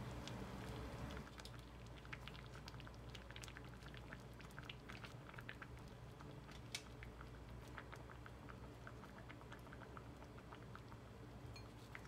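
Stew bubbling in an earthenware pot: many small irregular pops and ticks of bursting bubbles over a low steady hum.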